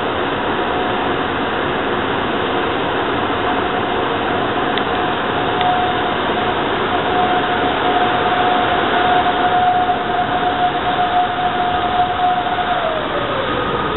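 An ÖBB electric locomotive hauling an EuroCity passenger train approaching through the station. It makes a loud, steady rushing rumble with one high steady whine on top, and near the end the whine falls in pitch as the locomotive passes.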